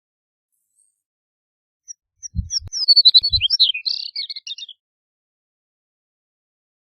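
Chestnut-collared longspur singing one song: a quick, jumbled warble of high sliding notes lasting about two and a half seconds, with a few low thumps under its start.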